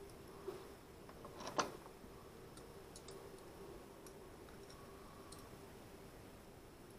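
Light clicks and ticks of small hard parts handled in the fingers. The loudest click comes about a second and a half in, and fainter ticks follow every second or so.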